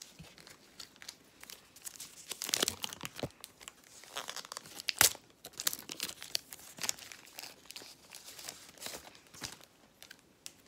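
A Megacracks trading card pack wrapper being torn open and crinkled: a run of sharp crackles and rips, loudest about two and a half seconds in and again near five seconds in.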